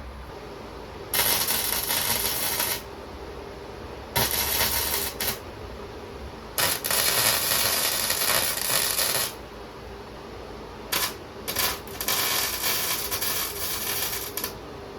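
Gasless flux-core wire welder (SUZUKID Buddy140) arc crackling and sputtering in several bursts of a second or more, laying short beads and tacks on mild steel. A faint steady hum runs between the bursts.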